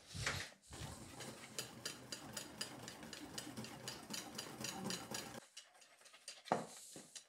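Dry breading mix of flour, starch and spices being stirred in a bowl: quick repeated scraping strokes that stop about five seconds in, with a short scrape near the end.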